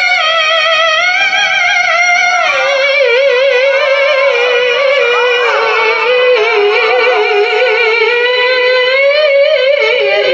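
Quran recitation in a high voice, drawn out in long melismatic notes with wavering, ornamented pitch. The line steps down a little about three seconds in and is held without a break.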